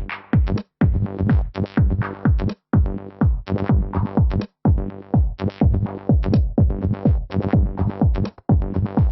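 Electronic dance music: a drum machine beat with deep kick drums sweeping down in pitch about twice a second, over layered synthesizer tones.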